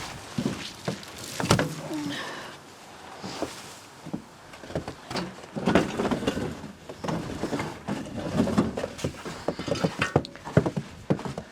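Irregular knocks, thuds and rustling from hands working with branches or wood.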